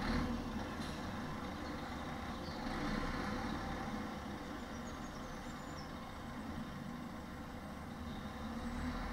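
Articulated delivery lorry's diesel engine running steadily at low revs as the truck pulls slowly across the goods yard.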